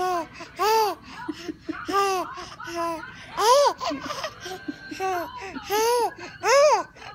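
Baby laughing in a string of short, high squeals, each rising and falling in pitch, about one a second.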